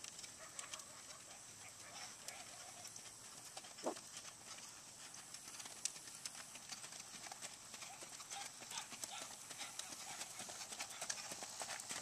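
Racking horse's shod hooves beating on packed dirt and grass at a quick, even gait, faint at first and growing louder as the horse comes nearer. A single brief louder sound stands out about four seconds in.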